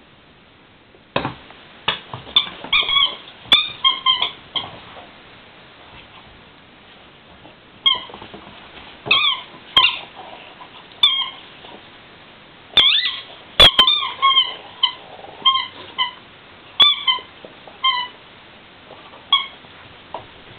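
A dog chewing a rubber squeaky toy: short squeaks in quick runs, some bent in pitch, in three spells with pauses between, along with a few sharp clicks.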